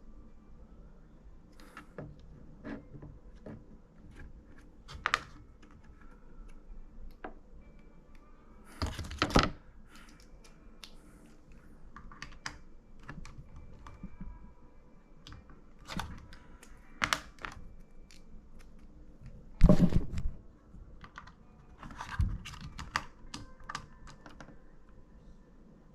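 Irregular light clicks and taps of small hard objects being handled, with two louder knocks about nine and twenty seconds in.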